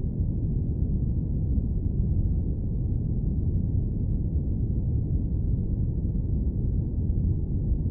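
Airplane cabin noise: a steady, deep rumble with no high hiss, holding level throughout.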